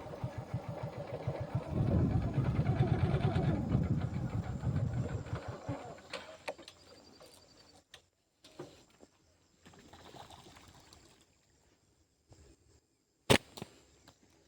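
A motor vehicle's engine running nearby, then fading away over about the first six seconds, leaving faint background. Near the end comes a single sharp crack.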